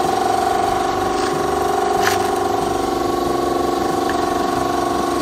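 Air compressor running with a steady hum of several constant pitches, with a single light tap about two seconds in.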